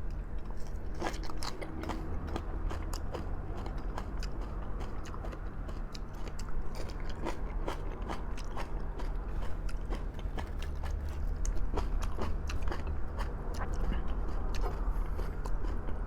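Close-miked eating of braised pork trotters: wet chewing with many sharp mouth clicks and smacks, over a steady low hum.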